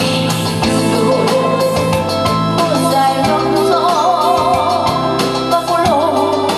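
A woman singing into a handheld microphone over loud amplified band accompaniment, her held notes wavering with vibrato through the second half.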